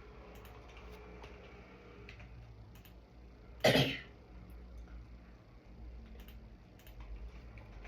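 A single short cough about three and a half seconds in, over faint scattered clicks like keyboard keys.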